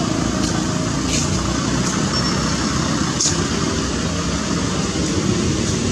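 Steady low rumble of outdoor background noise, with a few brief faint high chirps about a second and about three seconds in.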